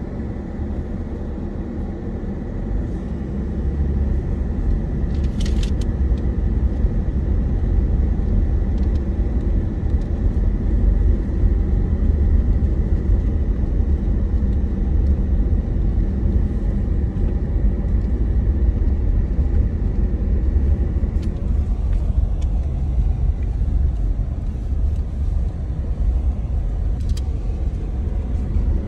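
Car cabin road noise while driving slowly: a steady low rumble of tyres and engine heard from inside the car, growing louder about four seconds in, with a few faint clicks.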